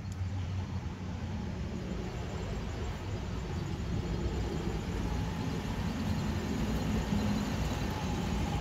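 Traxxas TRX-4 RC crawler driving slowly over dirt, its electric motor and gear drive whining, growing slightly louder as it comes closer.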